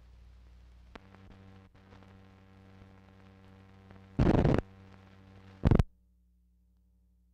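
Blank tail of an old film's soundtrack: a steady low mains hum with faint crackle, a single click about a second in, then two short, loud bursts of static-like noise, the second briefer, after which the hum drops lower.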